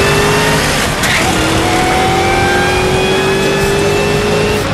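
Car engine accelerating hard at full throttle, heard from inside the cabin: its pitch climbs steadily, drops at a gear shift about a second in, then climbs again through the next gear.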